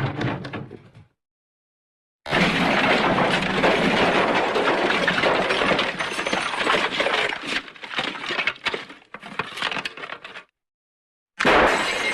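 Smash sound effect: a long, dense crash of breaking debris that thins into scattered cracks and clinks before cutting to dead silence. A new crash starts near the end.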